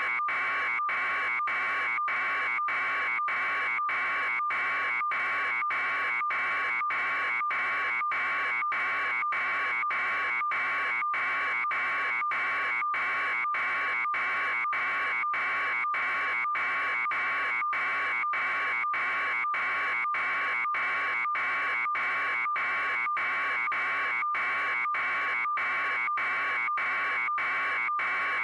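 An electronic buzzing tone pulsing at about two beats a second, with a short break between beats and an unchanging level.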